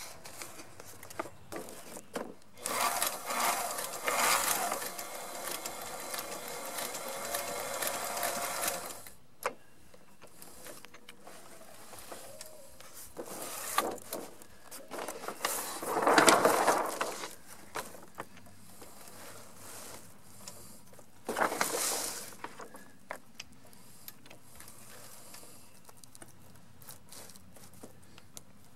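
Sailrite LSZ1 zigzag walking-foot sewing machine stitching through sail panel material in several runs: one long run of about six seconds, then shorter bursts, the loudest about halfway.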